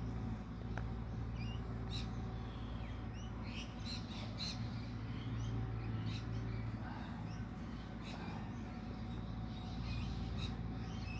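Small birds chirping in short, scattered calls, over a steady low hum.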